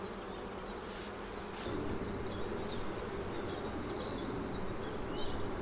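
Honeybees buzzing around an opened hive, a steady hum that gets a little louder about one and a half seconds in. Short high chirps sound over it.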